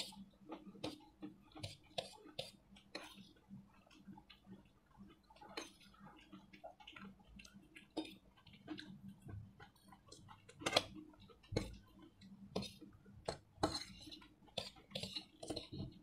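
Close-up eating sounds: metal forks clicking and scraping on stainless steel plates, with chewing and slurping of noodles, in a quick irregular run of small clicks.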